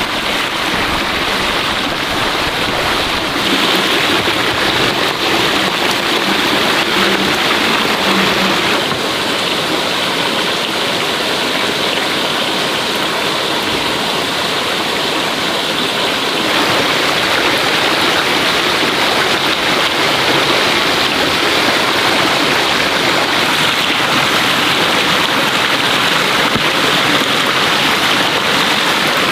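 Water rushing and splashing steadily, changing character a few times along the way.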